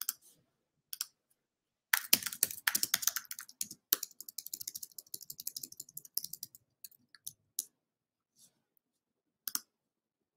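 Keys clicking on a computer keyboard: a single click, another about a second later, then a quick run of keystrokes lasting several seconds, and two more clicks near the end.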